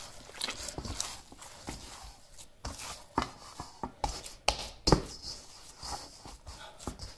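Hands kneading and pressing a glutinous rice flour and pork-grease dough in a stainless steel bowl: irregular dull thuds and knocks as the dough is pushed against the bowl, the loudest about five seconds in.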